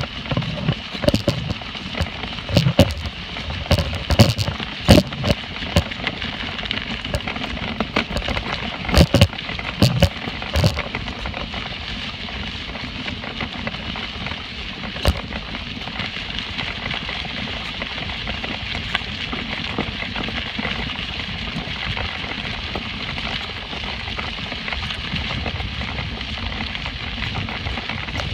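Footsteps crunching along a dirt and gravel trail, with sharp clicks and knocks over roughly the first ten seconds, then a steadier gritty crunching with only the odd click.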